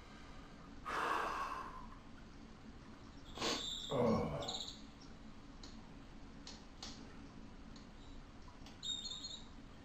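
Coloured pencil working on drawing paper, with faint light scratches and taps. Two louder rustling sounds stand out, about a second in and about four seconds in, the second with a low tone that drops in pitch.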